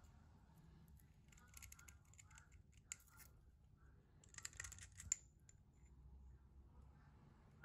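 Faint metallic scraping and small clicks as tweezers pry the jaws and their spring out of a rusty hand-drill chuck, with a quick run of scrapes and a sharp click a little past halfway.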